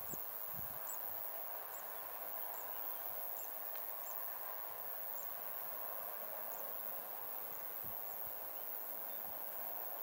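Faint outdoor ambience: a steady distant wash of noise, with a short, very high chirp repeating a little faster than once a second.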